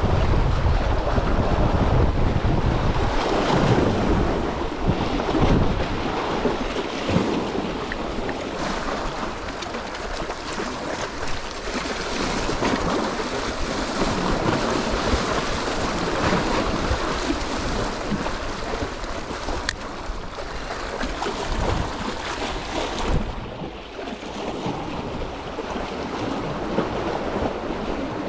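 Wind buffeting the microphone, heaviest in the first few seconds, over the steady wash of sea waves.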